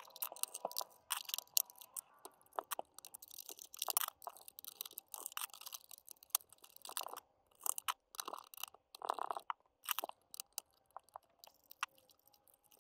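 Irregular small clicks, crackles and rustles of hands handling the wiring, cable connectors and plastic parts inside an opened Wanbo X5 projector, as connectors are worked loose from the circuit board.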